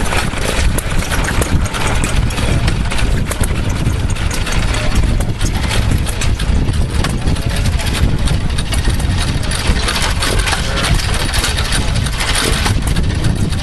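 Antique stationary gas engines running at once, a steady mix of rapid engine firing and knocking with no break.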